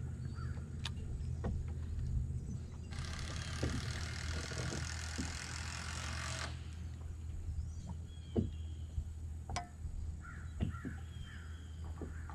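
Steady low hum of a bass boat's bow-mounted electric trolling motor. About three seconds in, a hissing rattle starts suddenly and cuts off after about three and a half seconds. A few sharp knocks follow later.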